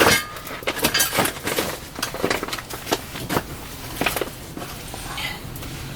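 Hand tools clicking and scraping against rusted, silicone-coated screws in a trailer's metal skin, irregular metallic clinks and knocks as a stuck screw is worked at.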